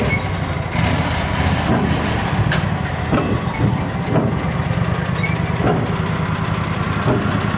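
Engine of an Ant rail-car mover running steadily as it hauls a railcar onto a transfer table, with a few scattered knocks from the moving car.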